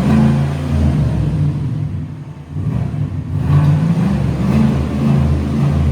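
2024 Chevrolet Silverado High Country's V8 gasoline engine accelerating through an open 3-inch stainless exhaust cutout, the exhaust note swelling and easing in several surges with a short lift about two seconds in.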